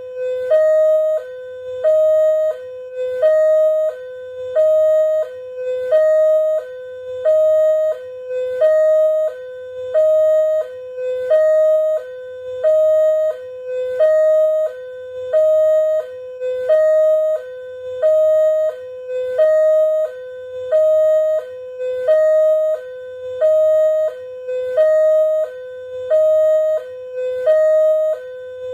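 Indonesian railroad level-crossing warning siren sounding continuously: an electronic two-tone alarm that alternates a higher and a lower tone, about one pair a second.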